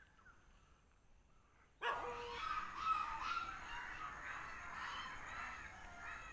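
A small puppy yapping and yipping in quick, overlapping high-pitched calls, starting suddenly about two seconds in after near quiet.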